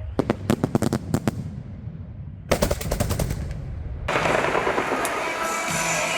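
Fireworks salute: two quick bursts of sharp, rapid cracks, then about four seconds in a dense crackle sets in with music.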